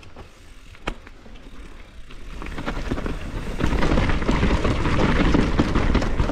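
Mountain bike descending a woodland dirt trail: tyre roll and bike rattle with wind rumbling on an action-camera microphone. There are a few sharp knocks at first, then the noise swells about two seconds in and is loud from around three and a half seconds as speed builds.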